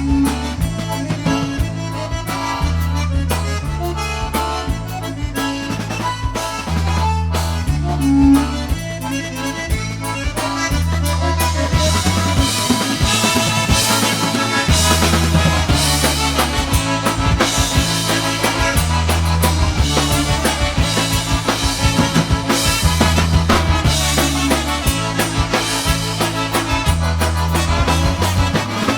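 Polish-style polka band playing an oberek: a squeezebox lead over a steady bass line and drum kit.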